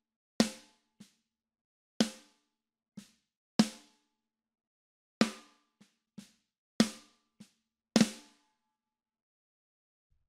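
Soloed snare drum track from a multitrack drum recording, played back: sharp snare hits, each with a short ring, and softer ghost notes between them. The hits stop about eight and a half seconds in.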